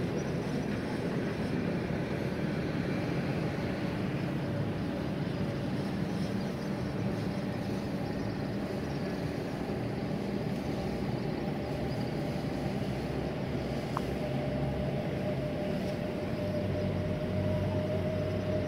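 Steady rumble of road traffic with a low engine hum, a held tone growing a little stronger near the end.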